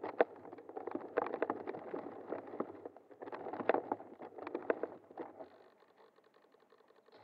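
Rustling, scraping and clicking of a model airplane's airframe being moved about on the grass with its motor off, picked up by the on-board camera. It dies away about five and a half seconds in.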